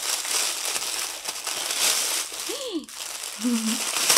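Plastic mailer bag crinkling and rustling as it is handled and opened by hand, with two brief hummed voice sounds about two and a half and three and a half seconds in.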